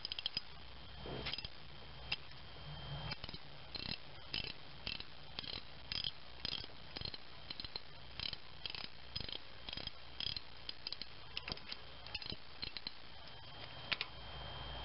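Socket ratchet clicking in short, quick runs as a 10 mm socket backs off the rocker arm nuts on a GM 3.4L V6, loosening them to free the pushrods.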